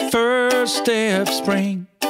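Background music: a ukulele-strummed pop song with a voice singing a line over the chords.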